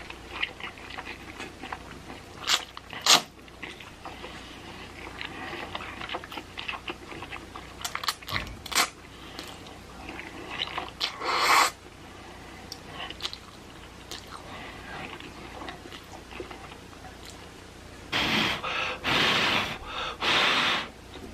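Close-miked chewing and eating of spicy cheese noodles, with a few sharp clicks. Near the end come several loud rushing bursts.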